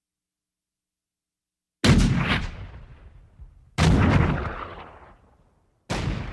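Cannon fire: three booms about two seconds apart, starting about two seconds in, each dying away in a long echoing tail.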